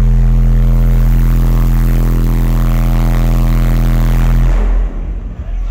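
A truck's wall of Resilient Sounds subwoofers playing one steady, very loud deep bass note with overtones, in an SPL competition run that reads about 160 dB on the meter. The note cuts off suddenly near the end.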